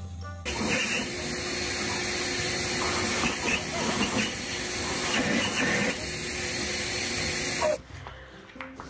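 Steady, loud rush of air from a leaf blower's tube aimed at a dog biting at the air stream. It cuts off suddenly near the end.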